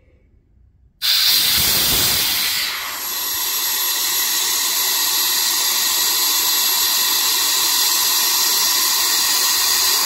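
Compressed air at about 100 psi blowing through a drilled-out 1/4-inch brass industrial quick-connect plug and coupler, a loud steady hiss that starts abruptly about a second in, eases slightly around three seconds in, then holds. It marks a flow of roughly 29 CFM.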